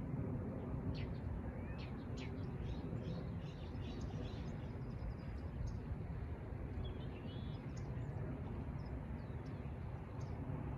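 Small songbirds chirping in short, scattered calls, with a brief trill about seven seconds in, over a steady low outdoor rumble.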